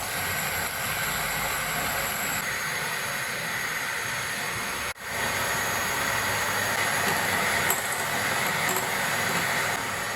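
Steady whirring of a small electric motor, with a brief break about halfway through.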